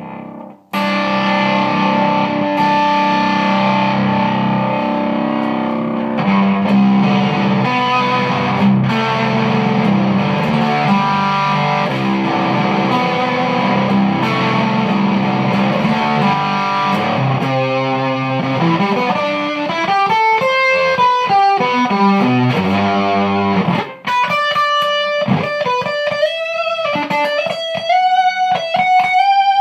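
Jazzmaster electric guitar played through a Ghost Effects MK1 Tone Bender fuzz pedal into a Hiwatt amp. Fuzzy strummed chords for about the first seventeen seconds, then single-note licks, ending on a held note bent upward.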